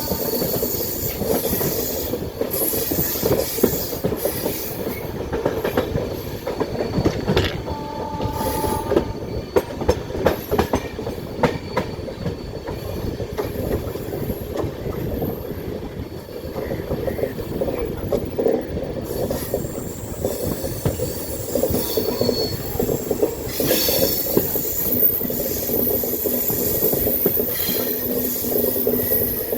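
Passenger train running on the line, its wheels clattering over rail joints, with brief squeals from the wheels near the start and about eight seconds in.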